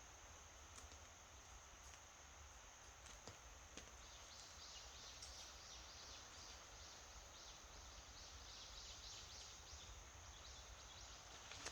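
Quiet outdoor ambience. From about four seconds in there is faint, rapid high chirping from a distant bird.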